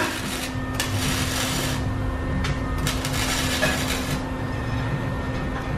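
Welding arc crackling and sizzling on an exhaust pipe in two main bursts, the first about a second long and the second about a second and a half, over a steady hum and low rumble.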